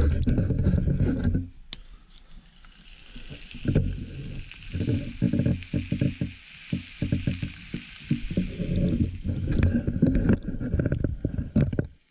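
Gammon steak sizzling in a frying pan over a small wood-burning stove: a steady hiss through the middle, under a loud, uneven low rumble that starts and stops abruptly.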